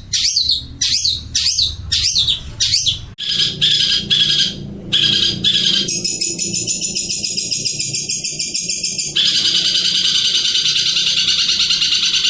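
Long-tailed shrike (pentet) singing loudly: a series of sweeping high notes over the first few seconds, then from about six seconds in a fast, even chatter of about six notes a second.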